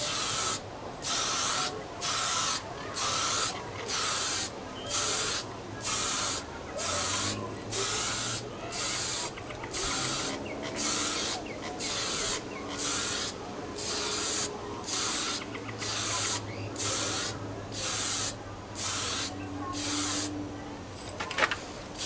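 Aerosol spray can of clear coat hissing in short, even bursts, a little more than one a second, with a sharp click near the end.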